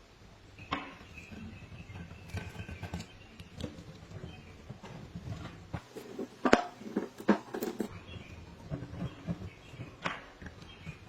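Irregular clicks, taps and knocks of small hard parts and tools being handled, loudest in a cluster of sharp clicks about six to eight seconds in.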